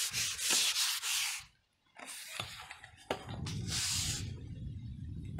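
Several bursts of rubbing, hissing friction noise, each from half a second to a second and a half long, then a steady low rumble from about three seconds in.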